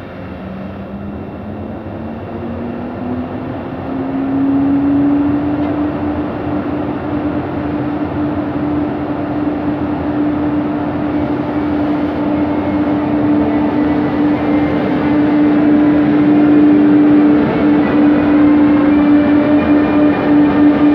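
Siemens Taurus electric locomotive (ÖBB class 1116) pulling away, its traction drive giving a whine that rises in pitch over the first few seconds and then holds steady. The sound grows louder as the locomotive rolls past.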